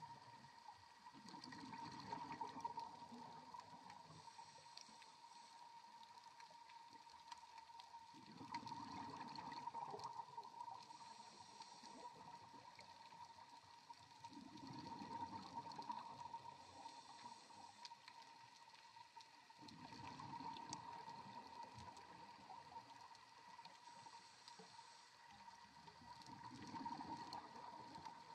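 Heard underwater: scuba divers' exhalation bubbles from their regulators, a bubbling rush about every six seconds that lasts a couple of seconds each time. A faint steady hum runs underneath.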